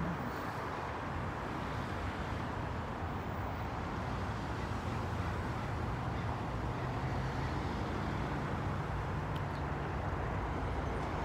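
Steady roadside traffic noise: a continuous hum of vehicle engines and tyres with no single event standing out.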